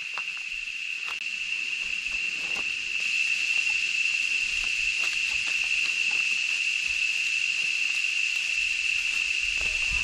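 Cicadas singing in one steady, shrill, continuous tone that gets a little louder over the first few seconds, with faint footsteps on dry leaf litter underneath.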